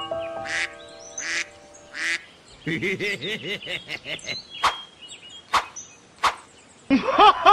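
Ducks quacking as a cartoon sound effect: a short bout of quacks in the middle and a louder, faster run near the end, with a few sharp clicks in between. A bright ringing chime of several notes sounds at the start.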